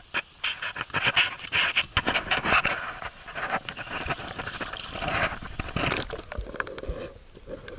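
Water splashing and a peacock bass thrashing in a landing net as it is scooped and lifted from the water, a dense run of splashes and slaps. The splashing drops away about six seconds in.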